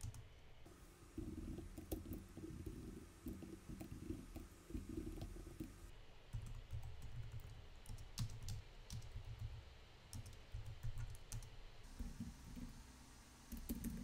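Typing on a computer keyboard: irregular runs of keystroke clicks and soft key thuds as code is entered.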